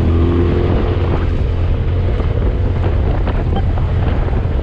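Polaris side-by-side UTV driving over a dirt track: a steady low engine and drivetrain rumble with wind buffeting the microphone in the open cab, and scattered light clicks and rattles.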